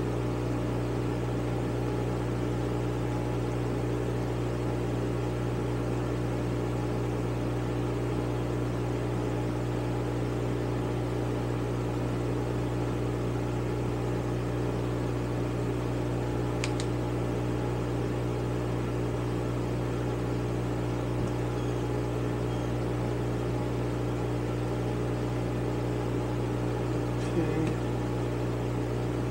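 A steady low mechanical hum, as from a running motor or fan, with a couple of faint light clicks from small-tool work on a motorcycle carburetor, one about halfway through and one near the end.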